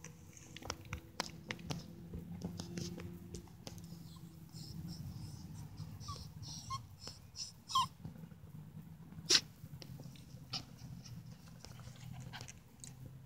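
Yorkshire terrier puppy snuffling and moving about in grass, faint, with a few brief high squeaks about six to eight seconds in and scattered sharp clicks, over a steady low hum.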